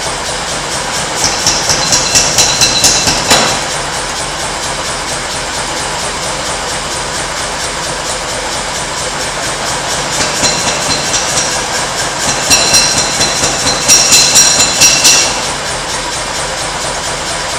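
Runs of quick, light hammer taps ringing on steel, about five a second, in three bursts over a steady roaring noise.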